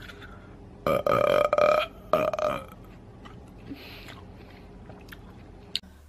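A woman burping loudly twice: a long burp about a second in, then a shorter one right after.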